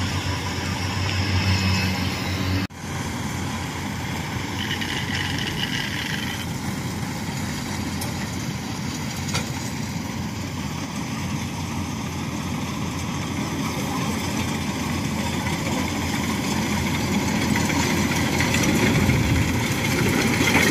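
Rice combine harvester running steadily as it cuts, a dense machine din that breaks off for an instant about three seconds in and grows louder near the end as a harvester comes closer.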